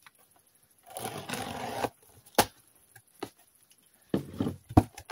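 Packing tape ripped off a cardboard box in one rasp lasting about a second. A sharp knock follows, then scraping and a thump as the cardboard flaps are pulled open.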